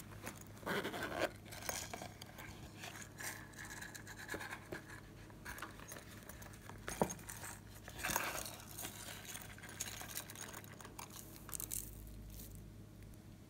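Hands handling and pressing a red whale-shaped toy: irregular scratching and rubbing, with a sharp click about seven seconds in.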